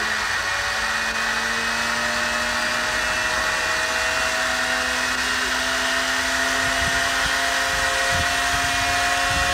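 Starter of a Shvetsov ASh-62 nine-cylinder radial aircraft engine whining as it winds up, its pitch rising slowly and steadily. Near the end, low irregular thumps begin under the whine as the engine is about to start.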